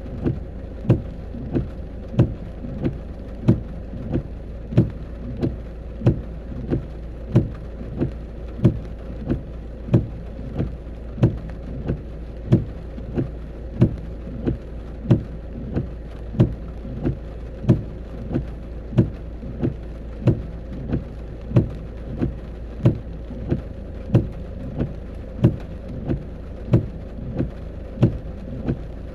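Even, regular knocking, about one and a half knocks a second, over a steady low rumble.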